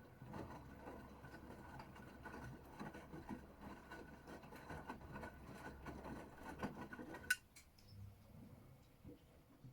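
Gorenje UseLogic 65165 washing machine tumbling a wash load: a low motor hum with water and laundry sloshing and knocking in the drum, which stops with a sharp click about seven seconds in.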